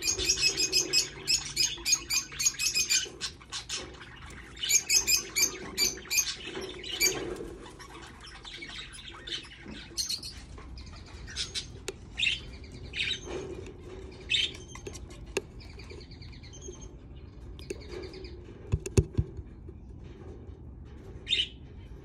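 Budgerigar chick chirping in fast runs of high, rapid calls, then single scattered calls. A sharp knock sounds once late on.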